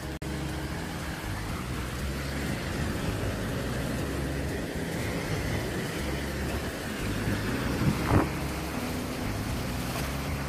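Ocean surf washing on a beach, with wind buffeting the microphone as a steady low rumble; a brief louder gust or wave about eight seconds in.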